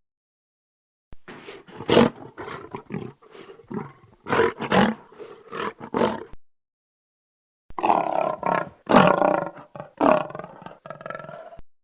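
A big cat roaring and grunting in two bouts of short, repeated calls, separated by a pause of about a second.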